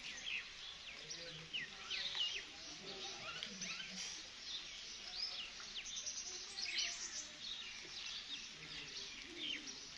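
Birds chirping: many short, high chirps, some gliding up and some down, a few each second over a faint steady hiss.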